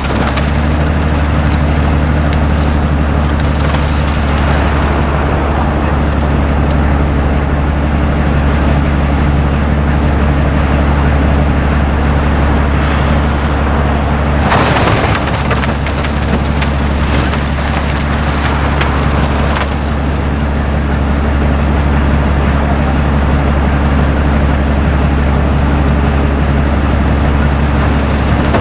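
Railway snow blower working through hard-packed snow: a steady low engine drone under the rushing hiss of snow being churned and thrown, with a louder rush about halfway through.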